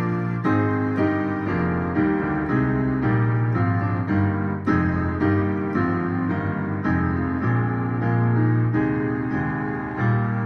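A hymn tune played on a Yamaha electronic keyboard with a piano sound, in full chords that change about every half second.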